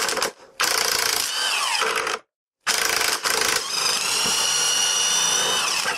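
A handheld power driver runs in three goes, a brief one at the start, then about one and a half seconds, then about three seconds, with a steady whine that falls in pitch as the motor slows at the end of each run. It is working out the motorcycle's front wheel axle.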